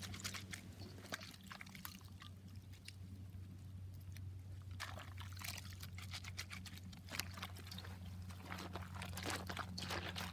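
Hands rubbing and squeezing salmon skins in a stainless steel bowl of soapy water: soft sloshing and splashing with the crackle of suds, sparse in the middle and busier near the end, over a steady low hum.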